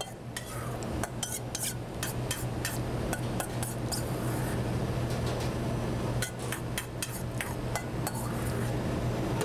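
A spoon clinking and scraping against a container as tuna tartare is spooned and spread into it: a string of light, irregular clinks over a steady low hum.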